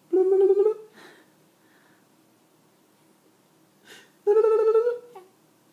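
Baby vocalising: two drawn-out cooing calls, each under a second and rising a little in pitch, about four seconds apart, with faint breaths between.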